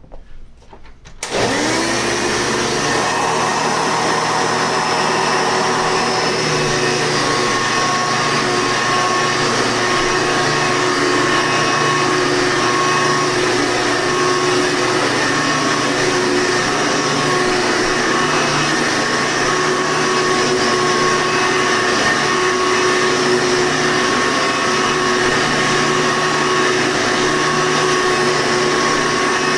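Hoover Sprint vacuum cleaner switched on about a second in, its motor spinning up quickly and then running steadily with a constant whine.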